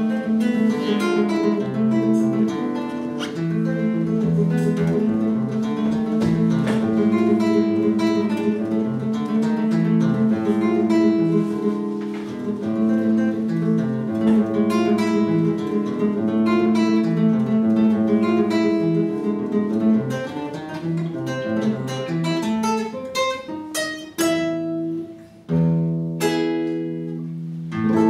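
Solo nylon-string classical guitar played fingerstyle: a steady run of plucked notes over a moving bass line. Near the end it changes to a few loud, ringing chords.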